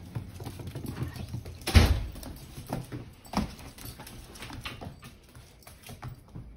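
A dachshund and a cat scuffling on a hard kitchen floor: scattered quick taps and scrabbling of claws and paws, with a louder thump about two seconds in and another sharp tap a little later.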